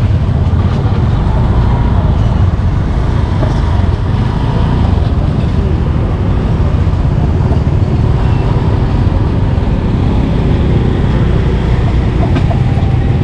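Steady low rumble of street traffic, with now and then a faint knock of a cleaver on a wooden chopping block.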